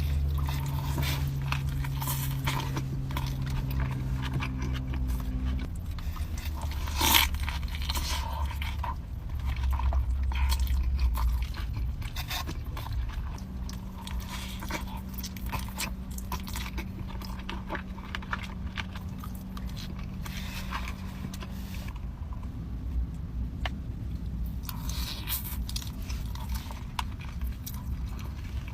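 Close-miked eating: crunchy bites into crispy fried food and chewing, a run of crackling crunches with one sharp crunch about seven seconds in, over a low steady hum.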